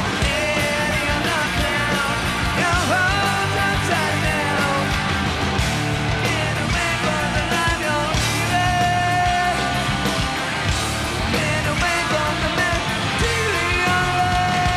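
Hard rock band playing live: distorted electric guitars over bass and drums, with a singer's voice on top. A melody line bends and twice holds a long high note, about halfway through and near the end.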